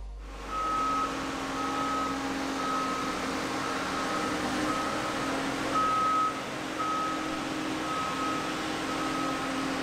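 A vehicle's reversing alarm beeping about once a second, with its engine running steadily underneath.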